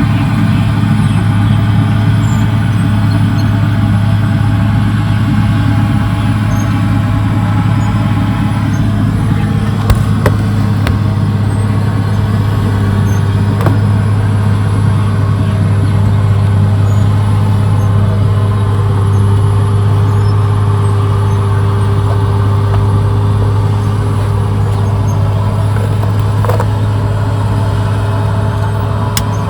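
Caterpillar D6R XL bulldozer's diesel engine running steadily with a deep, constant drone, with a few short sharp knocks about ten seconds in and near the end.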